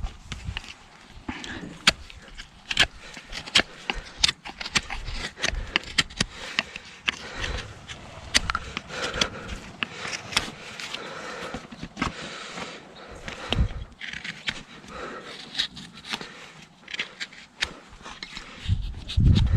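Farrier's tools working a horse's hoof: a quick, irregular string of sharp snips and clicks, with some scraping, as the hoof wall is trimmed.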